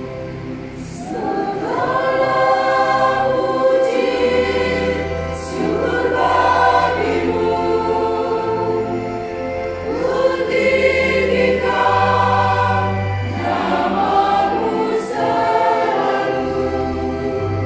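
Mixed choir of women and men singing a part-song together, coming in about two seconds in and singing in long phrases over held low notes.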